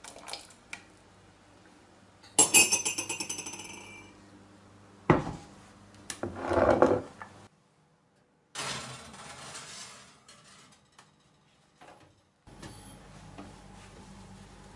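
A ladle clinks against a stainless steel pot of sugar syrup and rings briefly, followed by a couple of knocks. Then a glass baking dish scrapes onto the oven's wire rack, and near the end a steady low hum starts.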